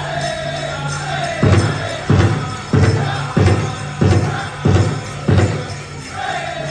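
Powwow drum group singing a chicken dance song in high voices over a big drum. About a second and a half in, the singing drops out for seven loud, evenly spaced drum beats, a little more than one a second, then the high singing comes back in near the end.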